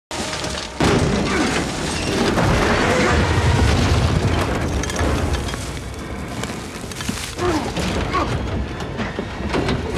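Action-film soundtrack: a heavy boom hits about a second in and rolls into a dense, rumbling din, with music underneath.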